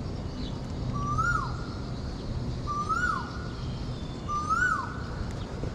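A bird repeating the same short call three times, about every second and a half to two seconds: each call holds a note, rises, then drops sharply. A steady low rumble runs underneath.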